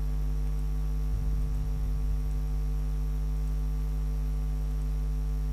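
Steady low electrical hum with an even background hiss, unchanging throughout.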